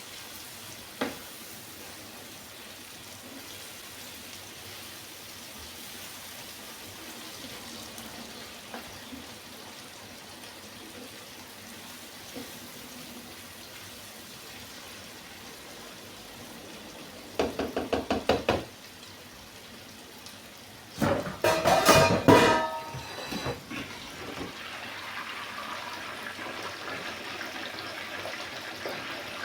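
Kitchen pots and utensils: a low steady hiss, then a quick run of about eight knocks and, a few seconds later, a loud clatter of metal cookware with some ringing.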